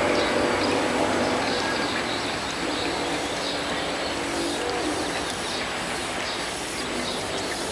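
Steady outdoor din of distant vehicles, with faint bird chirps high above it.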